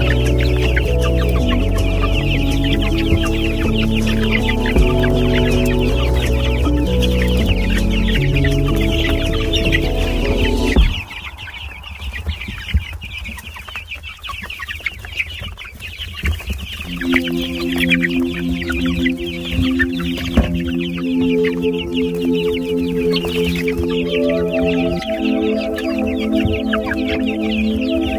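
A flock of gamefowl chickens clucking and calling without pause. Music plays underneath, drops out about eleven seconds in, and comes back a few seconds later.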